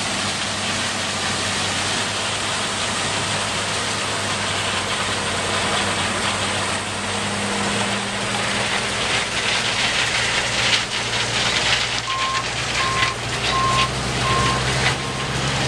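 John Deere 9770 STS combine running steadily while harvesting corn, its engine and threshing machinery making a constant loud noise. From about ten seconds in there is rougher crackling. From about twelve seconds in a reversing alarm beeps at an even pace, about one and a half beeps a second.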